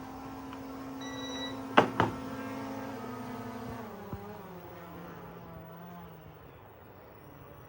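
Small drone's motors and propellers humming steadily, then spinning down, falling in pitch and fading from about four seconds in. A short high beep sounds about a second in, and two sharp clicks, the loudest sounds, come close together about two seconds in.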